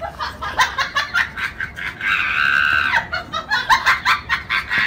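High-pitched, cackling laughter from a person, with a drawn-out squeal about two seconds in.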